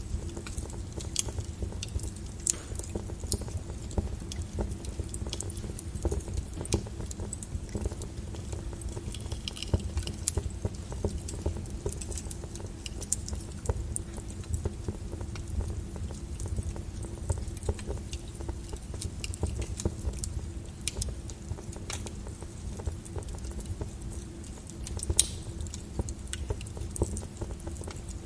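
Small wood fire crackling in a fireplace: irregular sharp pops and snaps over a steady low rumble.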